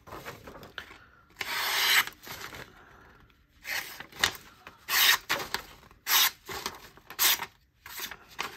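Miguron Moyarl folding knife slicing through a sheet of paper in about six short hissing cuts, with the paper rustling between them, as a test of the edge's sharpness.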